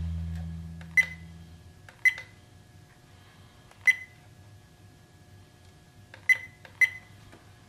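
Trail camera keypad buttons pressed five times at uneven intervals, each press a sharp click with a brief beep, as the menu highlight steps through the settings. Music fades out in the first second or two.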